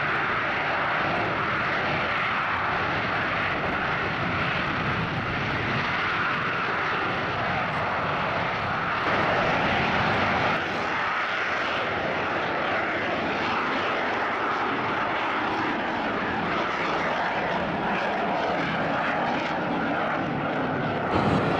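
AV-8B Harrier jump jet engine running loud and steady as the jet hovers and then flies on. It gets a little louder for a second or so about halfway through.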